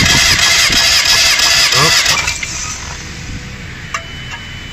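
Proton Satria 4G13 engine being cranked by its starter motor, a loud whining crank with an even chug, stopping about two seconds in without the engine catching. The cranking is part of a cylinder compression test.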